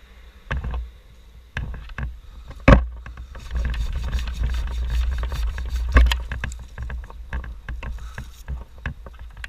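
Knocks, scraping and rattling of wood and crumbling chimney debris being handled, with two sharp knocks, one about three seconds in and one about six seconds in, over wind buffeting the microphone.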